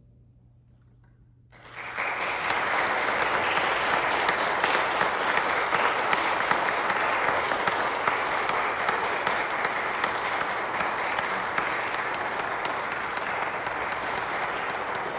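A brief hush, then audience applause breaking out about a second and a half in and continuing steadily.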